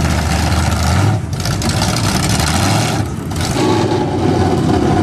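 Engines of lifted mud trucks on oversized tires running. The sound dips briefly about a second in and again about three seconds in.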